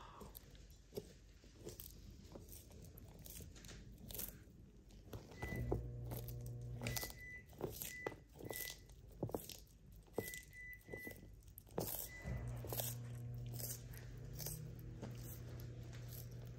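Sulcata tortoise biting and crunching food, a scatter of separate sharp crunches throughout. A steady low hum comes in for about a second and a half around five seconds in, and again from about twelve seconds in.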